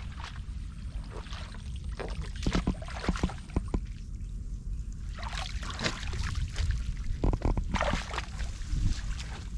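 Shallow water splashing and sloshing in irregular bursts, over a steady low rumble.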